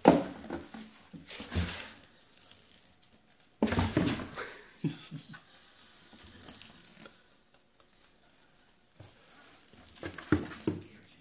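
British Shorthair kitten scrabbling and pouncing inside a cardboard box, its paws and body scratching and knocking on the cardboard in irregular bursts. The loudest bursts come right at the start and about four seconds in, with another flurry near the end.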